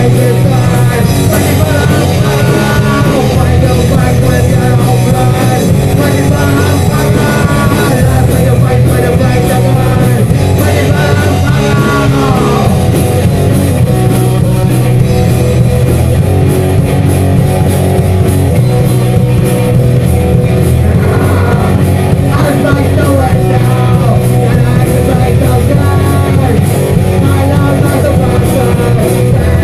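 A loud punk rock song with electric guitar, bass and drums playing continuously, and sung vocals.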